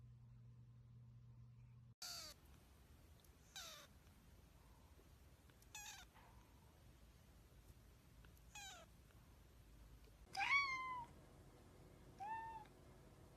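A young kitten mewing four times, short high cries that fall in pitch, then an adult tabby cat meowing twice, the first meow louder and longer than the second.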